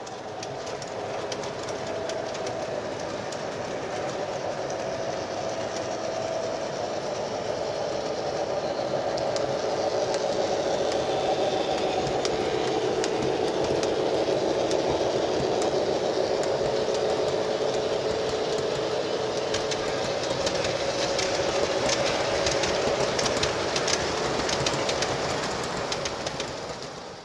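O scale model diesel train, a Chesapeake & Ohio EMD F7 A-B set with a GP9, running past: a steady hum of motors and wheels on the track, with wheels clicking over rail joints. The clicking gets thicker in the last several seconds. The sound fades in at the start and out at the end.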